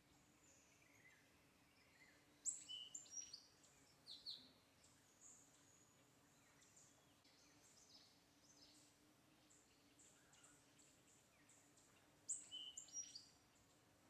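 Faint outdoor quiet with wild birds chirping: two short bursts of sharp, high, falling calls, one about two and a half seconds in and one near the end, with a few fainter chirps between and a low steady hum underneath.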